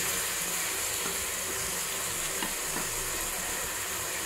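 Mutton and masala frying in oil in a pot, a steady sizzle, with a couple of faint knocks near the middle.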